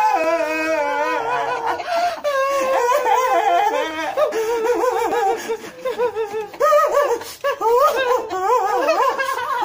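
Several people laughing hard together in high, wavering peals that pulse on and off.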